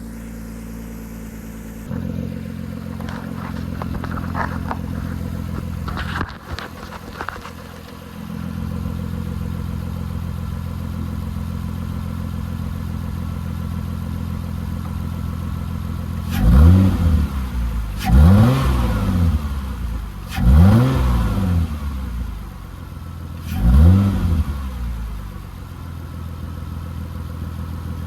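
2003 Lexus ES300's 3.0 V6 running at idle, then blipped four times in the last third, each rev rising and falling back quickly. The owner suspects an exhaust leak, and an air box not sealing so that the air-fuel ratio is off.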